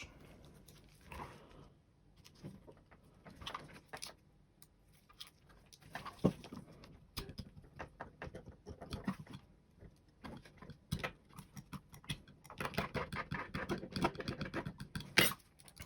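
Quiet, scattered taps and clicks of a Razer Diamondback mouse and its small plastic parts being handled, with a denser run of rapid clicking and rubbing near the end.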